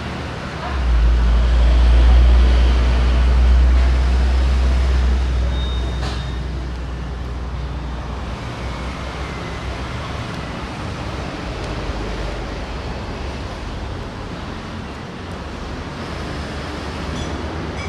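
Road traffic noise running steadily, with a deep low rumble that swells about a second in and fades away over the next several seconds.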